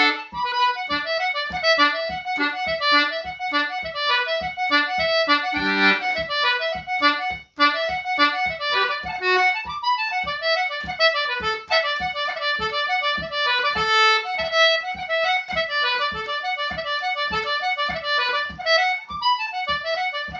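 A concertina playing a traditional Irish reel at a brisk pace: a quick, busy run of melody notes with chords, over a steady low tap about twice a second. The playing breaks off for an instant about seven and a half seconds in.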